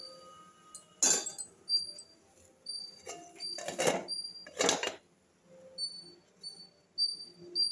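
Steel idli steamer pot and its cloth of steamed kozhukattai being handled: three clattering metal knocks and scrapes, about a second in, near four seconds and just before five seconds. A faint high chirping repeats in the background.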